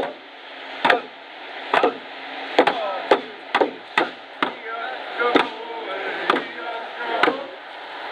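Hand drums struck in a slow beat, about one stroke a second, quickening to about two a second for a few strokes in the middle. Voices are heard between the strokes.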